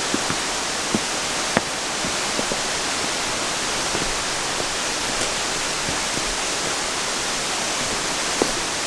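Steady rushing of a waterfall swollen by heavy rain, with a few faint clicks.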